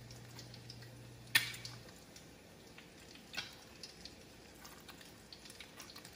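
Light clicks and taps of crumb-coated fried rolls and a fork against a ceramic serving plate as the rolls are moved and arranged, the sharpest click about a second and a half in. A faint low hum stops about two seconds in.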